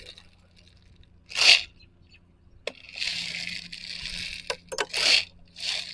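Handling noise from a Glock-style BB pistol magazine being loaded by hand: a few sharp small clicks among rustling and scraping bursts.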